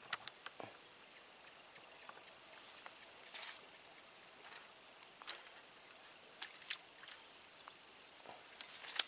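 Steady high-pitched drone of an insect chorus, such as crickets or cicadas, with a few faint scattered clicks and ticks.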